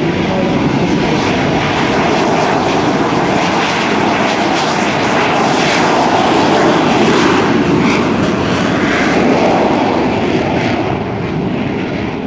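Lockheed F-117 Nighthawk's two non-afterburning General Electric F404 turbofans at takeoff power during the takeoff roll. Loud, steady jet noise that builds to its loudest about seven seconds in and eases slightly near the end as the jet passes.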